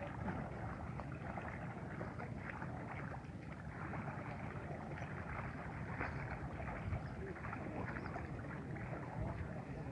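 Water splashing and lapping against a small raft, a steady noisy wash scattered with small irregular ticks and knocks.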